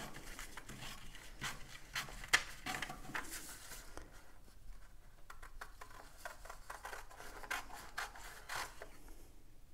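Pen scratching on paper as lines are drawn, with rubbing of the paper and ruler: faint, irregular strokes.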